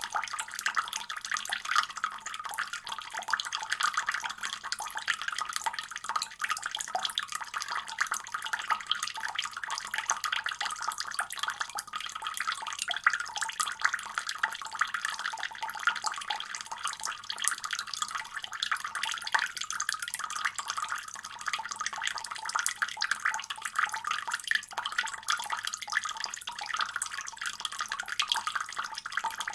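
Water faucet running steadily, its stream splashing with an even, unchanging hiss.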